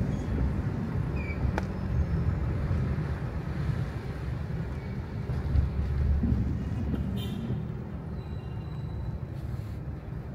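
Low, steady rumble of a car engine and road traffic in slow, congested city traffic, with a brief faint hiss about seven seconds in.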